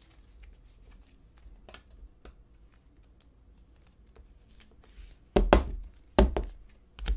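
Faint rustling and small clicks of a clear plastic sleeve as a trading card is slid into it, then three thumps under a second apart near the end as the sleeved card is handled against the tabletop.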